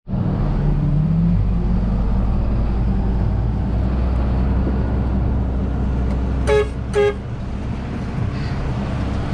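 Tractor engine running steadily, heard from inside the cab, its note rising briefly about a second in. Two short horn toots about half a second apart near the end.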